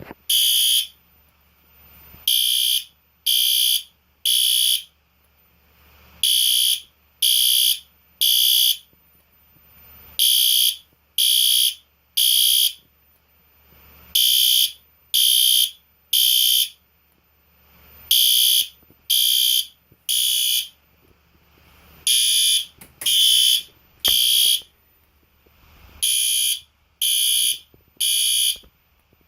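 System Sensor SpectrAlert Advance P2R horn strobe sounding in the temporal code 3 evacuation pattern. It gives three half-second high-pitched blasts, then a pause, and the group repeats about every four seconds.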